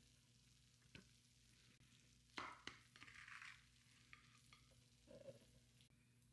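Faint scraping and clicking of a spatula scooping baked hash brown casserole out of a glass baking dish, with the sharpest scrape about two and a half seconds in.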